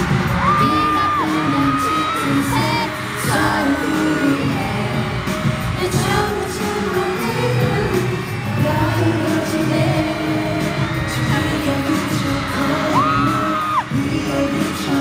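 Live pop song with male vocals over an arena sound system, heard from the audience. A nearby fan's high voice rings out over it briefly near the start and again near the end.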